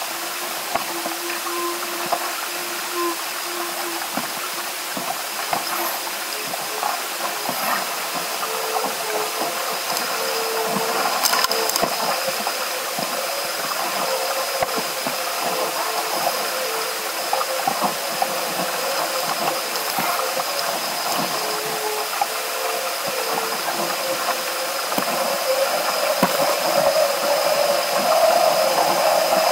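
Water rushing past a Musto Skiff sailing dinghy under sail, mixed with the steady hiss of wind on the microphone, growing louder near the end.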